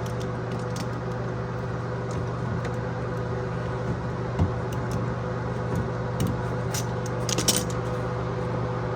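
A steady mechanical hum, with a few light clicks and clinks as the toilet supply line fittings are handled, several of them close together near the end.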